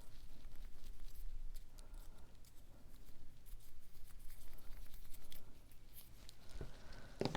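Cardstock pieces being handled on a work table: light rustling and small clicks, with one sharper tap near the end.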